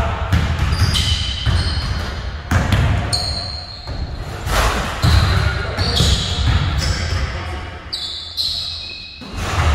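Basketballs bouncing repeatedly on a hardwood gym floor, several balls dribbled and shot at once, in a large gym.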